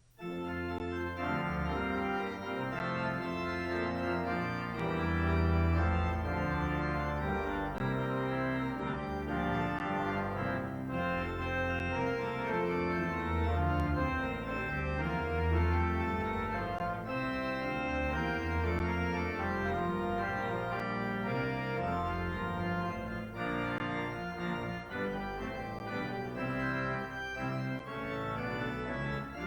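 Organ playing sustained chords over a moving bass line, starting abruptly and continuing without a break.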